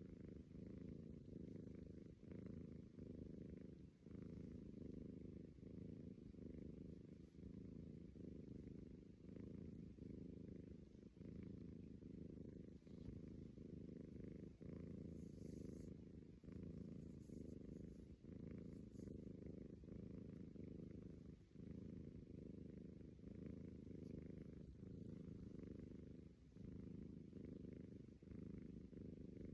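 Persian cat snoring: a quiet, low, continuous rumble that dips briefly between breaths.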